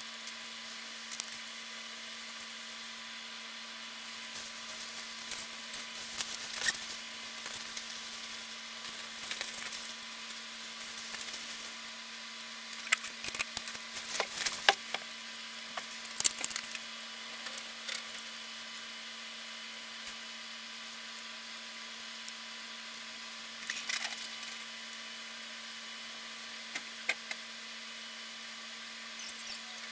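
Steady electronic hiss with a constant low hum, broken by scattered clicks and crackles, thickest a little before the middle and again later on: the noise floor of a recording that carries no real audio.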